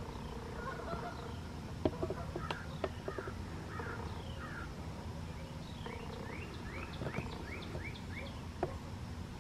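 Birds calling over a steady low engine hum: a few calls about two seconds in, then a quick run of short falling notes a little after six seconds. A few sharp ticks are scattered through it.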